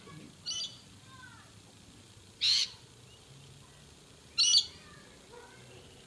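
A wild bird calling three times, about two seconds apart: short, loud, high-pitched calls.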